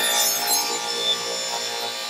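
Ingersoll-Rand B12 "Safety Saw" pneumatic circular saw, driven by its triple-piston "Little David" air motor, running and cutting into wood, with a steady hum under the sawing noise. The level falls off a little near the end.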